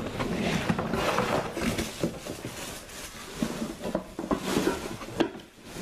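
Cardboard box of a non-stick cookware set being opened and rummaged through: irregular rustling, scraping and light knocks of cardboard and packaging.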